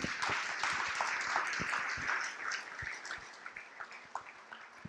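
Audience applauding, many hands clapping, loudest in the first two seconds and then dying down.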